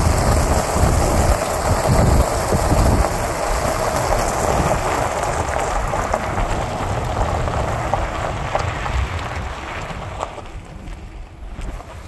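Wind buffeting the microphone held outside a slowly moving car, over a steady hiss of tyres rolling on a gravel driveway. The rumble and hiss ease off near the end.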